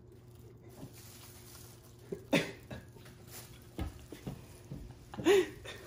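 Short breathy vocal sounds from a person: one about two seconds in and a louder, voiced one near the end. Faint low knocks come in between.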